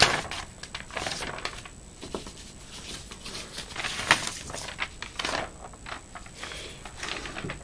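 Sheets of paper rustling and crinkling as they are handled, in an irregular run of soft rustles and small clicks, with one sharper crackle about four seconds in.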